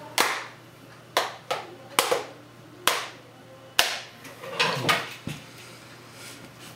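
Plastic back cover of an Asus Eee Slate tablet being pressed onto its metal frame, its clips snapping into place: about ten sharp snaps at irregular intervals, closely spaced in pairs here and there.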